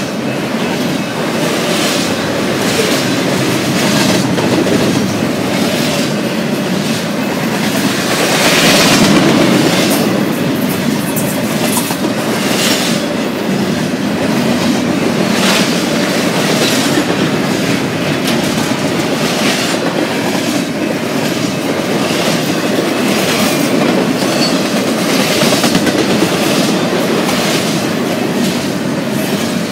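Double-stack intermodal container train rolling past at speed: a steady rumble of steel wheels on rail, with sharper clatters recurring every second or two as car trucks pass.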